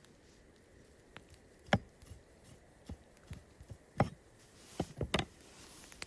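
A series of irregular sharp knocks and clicks, about eight in all, with two louder ones roughly two and four seconds in and a quick cluster of three near the end.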